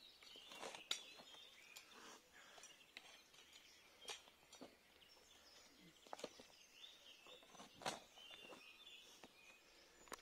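Faint, irregular knocks of a mattock chopping into garden soil, a few seconds apart, with birds chirping faintly.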